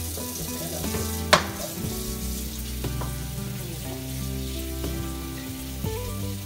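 Kitchen tap running steadily into a steel sink as hands are rinsed under the stream, with one sharp knock of a knife blade against a plastic cutting board about a second in. Background music with held chords plays underneath.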